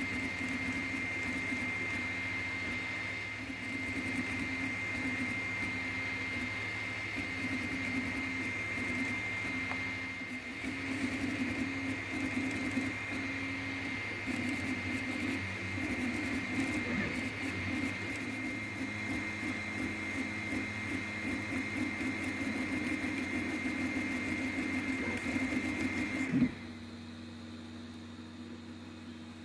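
Artillery Sidewinder X1 3D printer printing: the stepper motors buzz in shifting patterns as the print head moves, over a steady high whine. About 26 seconds in, the motors stop with a click as the print finishes, leaving only a quieter steady fan hum.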